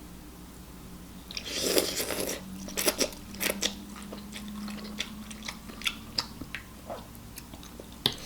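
Close-up crunching and chewing of a crunchy snack: one loud bite about a second and a half in, then a run of sharp crackling crunches as it is chewed.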